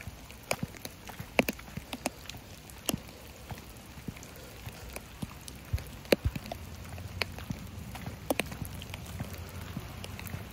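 Light rain falling steadily, with heavy drops from the tree overhead landing as irregular sharp taps.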